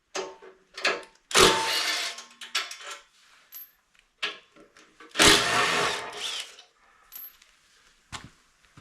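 Tools working the front fender bolts of a motorcycle: scattered clicks and clinks, with two loud noisy bursts of about a second each, one near the start and one about halfway through.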